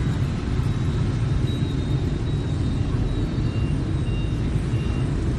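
Steady rumble of city street traffic, motor scooters and cars passing, with a few faint short high beeps in the second half.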